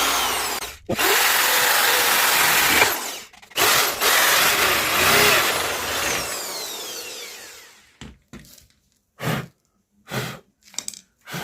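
Electric drill with an 8 mm bit drilling holes into a motorcycle's metal exhaust pipes, running in three long runs that fade away about eight seconds in, then a few short bursts near the end.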